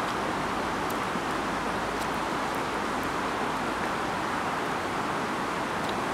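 Steady rushing of a flowing river, an even noise that does not change, with a few faint ticks.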